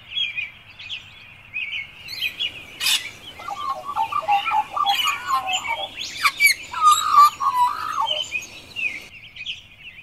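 Birds chirping steadily in a busy high twitter. A lower, warbling bird call joins twice in the middle. There is a short sharp click about three seconds in.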